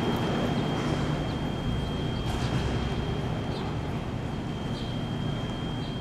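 Low, steady rumble of idling engines and city street traffic, with a thin steady high whine and a few short faint chirps.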